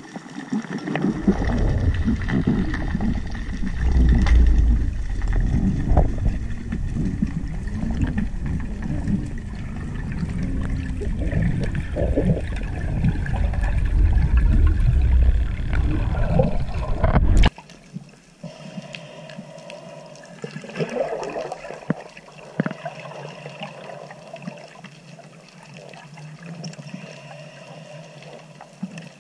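Underwater sound picked up through a camera housing: a loud, churning low rush of water and movement around the camera that stops abruptly a little over halfway through, leaving a much quieter underwater background with faint clicks.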